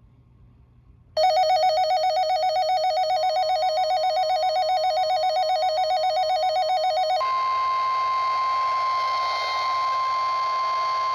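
Midland 74-250 weather radio's built-in alert siren: a loud, rapidly warbling electronic tone for about six seconds. Then the radio opens its speaker and the NOAA Weather Radio 1050 Hz warning alarm tone comes through, one steady tone over a hiss of static, signalling a severe thunderstorm warning.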